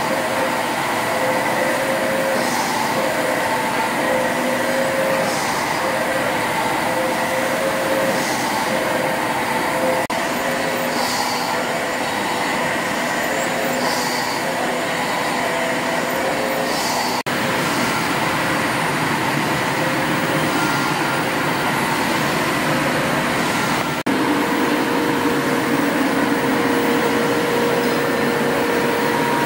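Restored stationary steam engines running: a steady mechanical clatter and hum, with a soft hiss about every three seconds through the first half. The mix changes slightly a few times as different engines come in.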